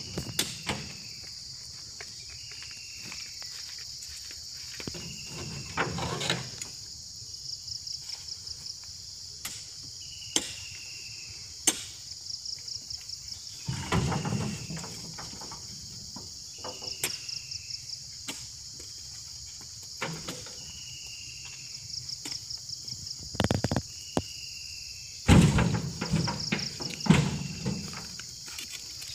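Insects buzzing steadily in pulsing trills, with a short falling call repeating every few seconds, broken by several heavy thuds as oil palm fruit bunches are heaved into a truck's cargo box; the loudest thuds come near the end.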